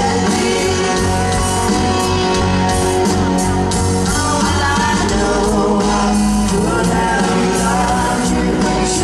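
Live rock band playing: a woman sings lead over electric guitars and drums.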